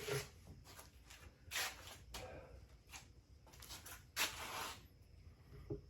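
A few short scrapes and soft knocks of unfired clay bird feeder pieces being handled and fitted together, the longest scrape about four seconds in.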